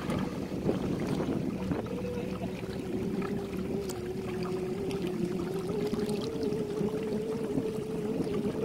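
Motorboat engine running at steady speed, a continuous hum whose pitch drifts slightly, over the rush of water and wind.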